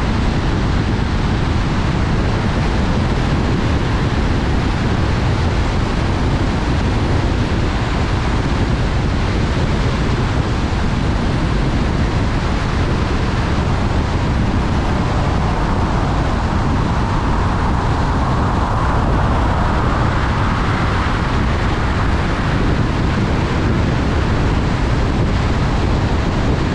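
A car driving at highway speed on wet pavement, heard from inside the cabin: steady tyre and road noise with wind. The hiss swells for a few seconds about two-thirds of the way through.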